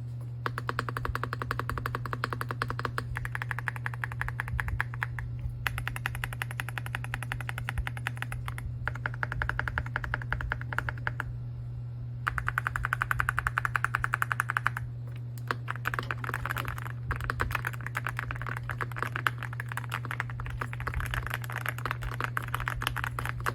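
Typing on a YUNZII X71 gasket-mounted mechanical keyboard with transparent keycaps and Crystal Ice switches: fast keystroke clacks in runs, broken by short pauses, over a steady low hum.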